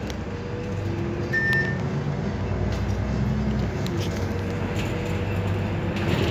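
Solaris Urbino 12 city bus, fourth generation, heard from inside at the front while driving: a steady engine and drivetrain hum with faint whining tones, and a short high beep about a second in.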